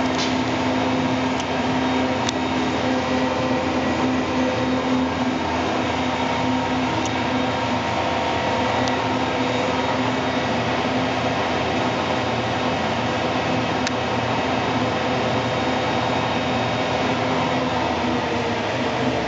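TOS Celakovice SUA 100 CNC lathe running: a steady mechanical hum and whine with several held tones, and a few faint ticks.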